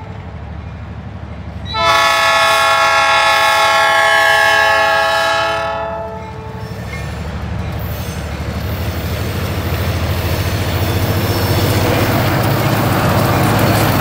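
Two EMD GP15-1 diesel locomotives sound a long multi-note air-horn blast for the grade crossing, lasting about four seconds. After the horn stops, the diesel engines' deep rumble under load grows steadily louder as the locomotives pass close by.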